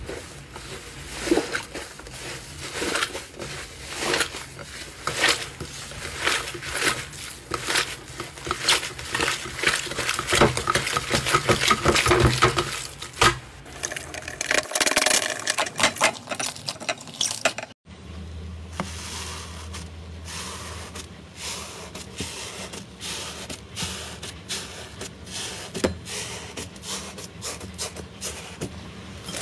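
Hands kneading and pulling apart a thick, crumbly orange slime, giving a dense run of small crackling and squelching clicks. About two-thirds of the way through it changes to a metal potato masher pressing into purple slime, with sparser, quieter clicks and squishes.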